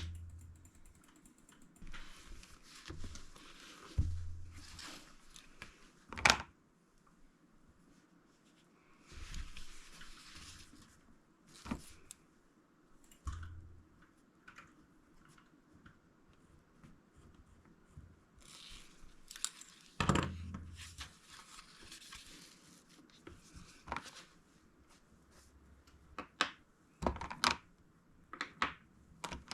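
Water-soluble wax crayons being handled and swatched on paper: a few stretches of scratchy strokes, with clicks and knocks as the crayons are picked up and set down on the table.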